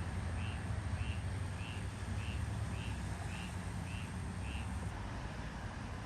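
A steady low rumble, with a short high chirp repeating about every 0.6 seconds that stops about four and a half seconds in.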